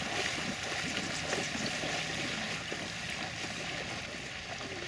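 Waders sloshing through shallow marsh water with each step: a steady splashing.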